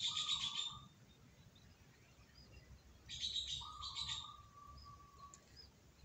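Zebra dove chick cheeping while it is hand-fed from a syringe, a begging call. There are two bursts of rapid high cheeping, one at the start and another about three seconds in, each with a thin, steady, lower squeal.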